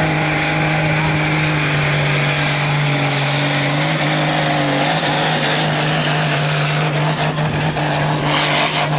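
Diesel engine of a pulling tractor running flat out under heavy load while dragging a weight-transfer sled, holding a steady pitch, with a thin high whine that climbs over the first three seconds.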